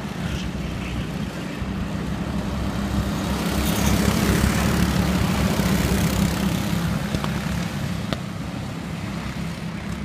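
A pack of go-kart engines buzzing on a racing circuit, swelling as karts pass close about four to six seconds in, then fading as they move away.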